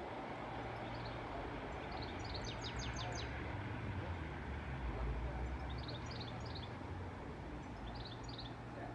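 Distant, steady low rumble of the Class 37 diesel locomotives' English Electric V12 engines as the test train draws away down the line. A bird cuts in three times with quick runs of high chirps.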